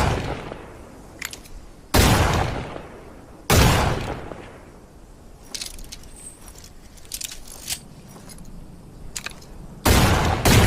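Revolver gunshot sound effect: single shots about two seconds, then a second and a half apart, each with a decaying tail. A stretch of light metallic clicks and rattles follows, then two more shots near the end.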